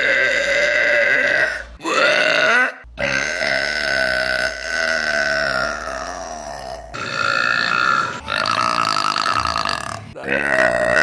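A woman's long, drawn-out burps, about five in a row with abrupt cuts between them. The longest lasts about four seconds, its pitch wavering as it goes.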